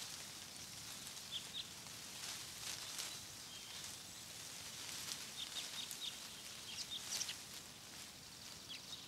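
Faint outdoor nature ambience: a soft, steady high hiss with scattered short, high bird chirps.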